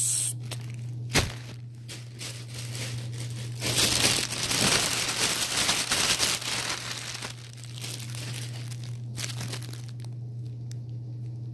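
Plastic packaging crinkling and rustling as it is handled and opened, loudest from about four to seven seconds in, with a single knock about a second in. A steady low hum runs underneath.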